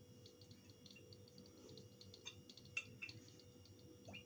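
Near silence: faint room tone with a steady low hum and a few soft, scattered ticks as olive oil is poured in a thin stream onto chicken pieces.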